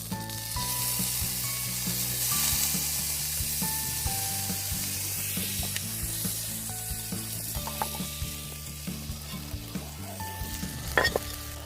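Food sizzling hard in a hot pan, with a sharp clink near the end. Soft background music with held notes runs underneath.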